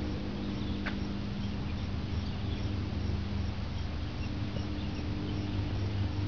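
Summer outdoor ambience: insects chirping in a faint, even rhythm over a steady low hum.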